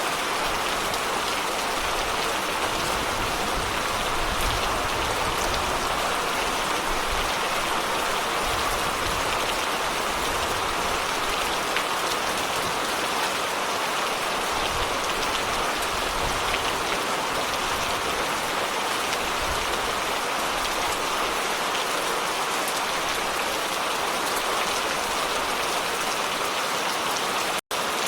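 Steady heavy rain falling, an even hiss of drops with no breaks. The sound cuts out for an instant near the end.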